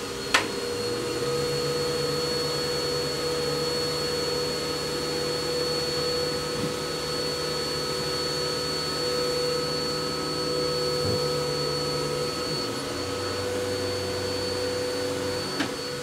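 Upright vacuum cleaner running on carpet, a steady drone with a high whine, its low note shifting as it is pushed about. Two sharp clicks, one just after the start and one near the end.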